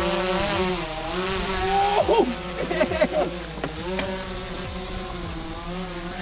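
Boat outboard motor running steadily, its pitch wavering slowly. A few brief sliding sounds stand out about two to three seconds in.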